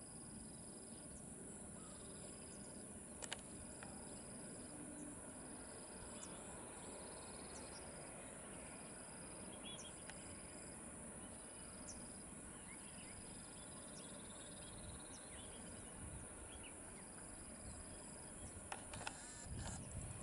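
Insects trilling: a steady high-pitched trill under a repeating chirp that comes in one-second pulses about every second and a half, with a few faint short chirps. There is one sharp click about three seconds in and a few soft knocks near the end.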